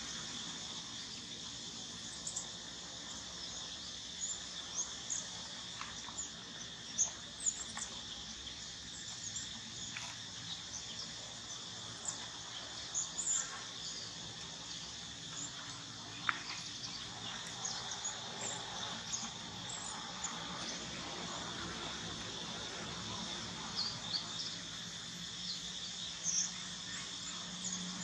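Steady high-pitched insect drone, with short bird chirps scattered over it and a few faint clicks: outdoor daytime ambience.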